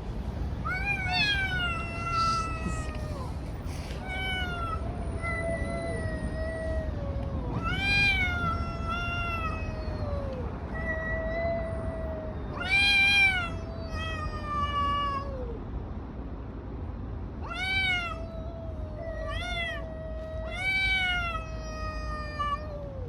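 Cats yowling at each other in a fight standoff: long, drawn-out caterwauls that rise and then sag in pitch, following one another with hardly a break and sometimes overlapping. The loudest yowl comes about halfway through.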